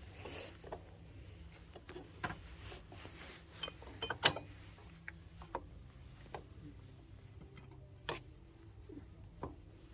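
Scattered clicks and knocks of tools and parts being handled during tractor disassembly, the sharpest about four seconds in, over a faint steady hum.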